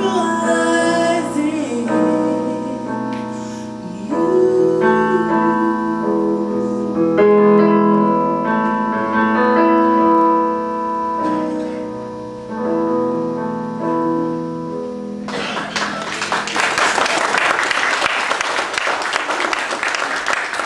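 A woman sings a gospel solo over piano accompaniment, and the piano plays on in sustained chords to the close of the song. About fifteen seconds in, the congregation breaks into applause.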